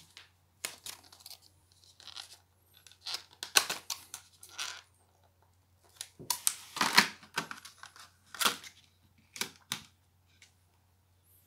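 Clear plastic clamshell tray being handled and pried open, the thin plastic crackling and clicking in irregular bursts, loudest in two clusters in the middle.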